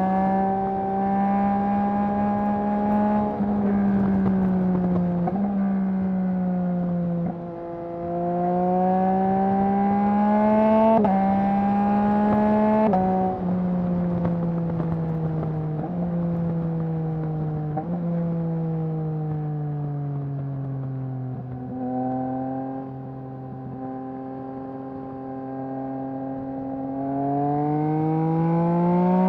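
2021 Yamaha MT-09's inline three-cylinder engine through a Mivv full-system exhaust under way, its note stepping with gear changes and easing down, then rising again near the end as the bike accelerates.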